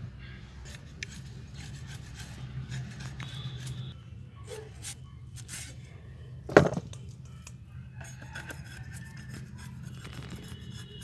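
Potato being sliced on a boti, a curved blade fixed upright on a wooden base: scraping and small clicks. One sharp, loud knock comes about two-thirds of the way in.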